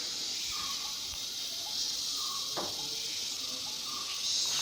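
Forest ambience: a steady high-pitched insect drone that swells near the end, with a few short, faint bird notes over it.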